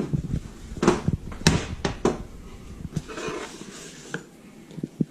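Hand tools being handled and taken from a tool belt: a series of sharp knocks and clicks, a rustle about three seconds in, and a few small clicks near the end.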